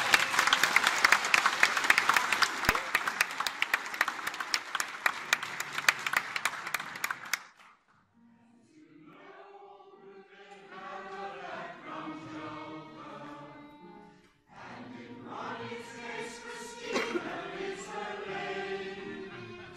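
Audience applause that stops about seven seconds in; after a short pause a choir starts singing.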